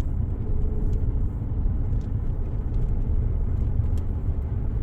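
Steady low rumble with a faint steady hum above it and a few light clicks.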